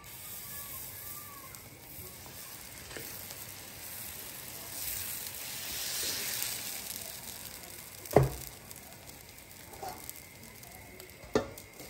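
Batter sizzling on a hot griddle as it is poured on in a spiral, the sizzle swelling to its loudest about five to seven seconds in. A sharp knock sounds about eight seconds in and a lighter one near the end.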